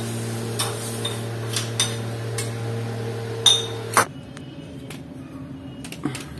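Metal spoon clinking against a small kadai several times over a steady low hum, the last two clinks the loudest; hum and clinks cut off abruptly about four seconds in, leaving a quieter background with a few faint clicks.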